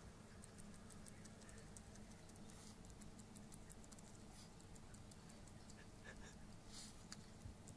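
Faint, slow breathing of a sleeping dog, a soft airy breath about every four seconds, over a low steady hum and light scattered clicks.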